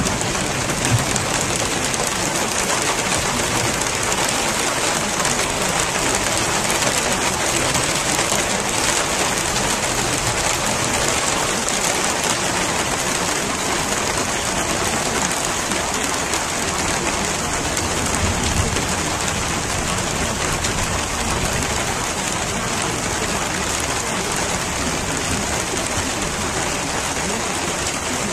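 Steady, even rain falling, a constant hiss.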